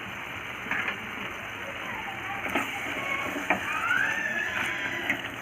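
Chicken curry sizzling in the pan, with a few sharp clicks of a spoon against the pan as it is stirred. A short, high, rising call sounds in the background near the end.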